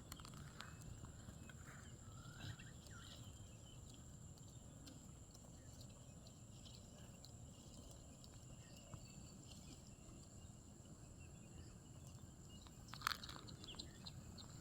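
Near silence: faint outdoor pasture ambience with a thin steady high-pitched whine, a couple of faint short calls about two seconds in, and a brief click near the end.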